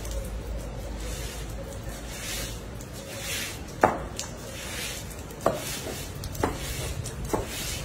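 Broom bristles swishing and scrubbing across a wet tiled floor, pushing water. Four sharp knocks come in the second half, the first the loudest.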